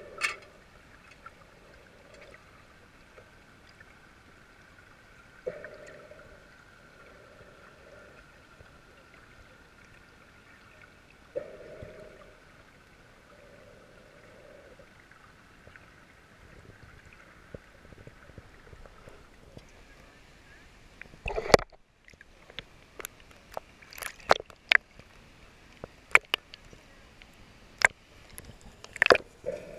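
Underwater hiss heard through a submerged action camera, with a few short low puffs. About two-thirds of the way in the camera breaks the surface with a loud splash, then water splashes and sloshes against it at the waterline in quick sharp slaps.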